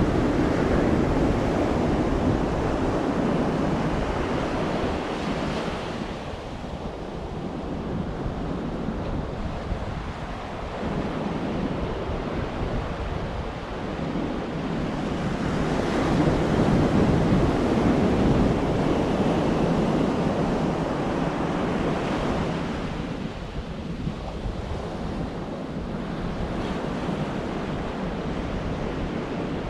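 Ocean surf breaking and washing up the beach, the noise swelling loud twice and easing off in between, with wind rumbling on the microphone.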